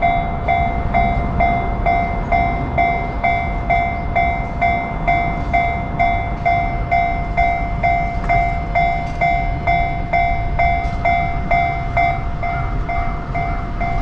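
Level crossing warning bell ringing at a steady pitch, about three strikes a second: the electronic 'kan-kan' alarm of a Japanese railway crossing that is active, with a low rumble underneath.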